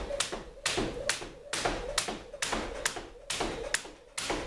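Jump rope slapping a hardwood floor in a steady rhythm, about two sharp slaps a second, one for each turn of the rope.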